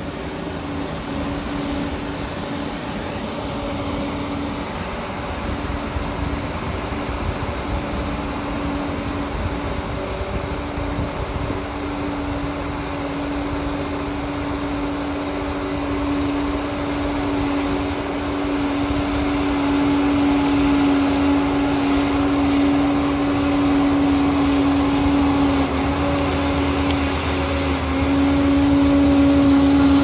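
Liebherr PR 746 crawler dozer's diesel engine working under load as the blade pushes a pile of soil, with a steady whine over a low rumble. It grows louder as the machine comes close.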